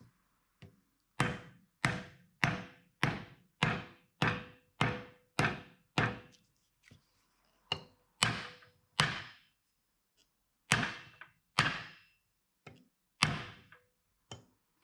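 Repeated sharp knocks, about two a second with two short pauses, each with a brief ring, as the axe head is driven onto its freshly glued wooden handle to seat it.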